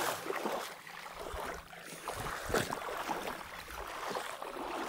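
Footsteps wading through shallow water over sand, each stride a brief splashing swish.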